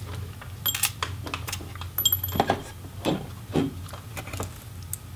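Scattered light clicks, knocks and metal clinks as a laptop's display assembly is handled and lifted free at its metal hinges, with one ringing metallic clink about two seconds in.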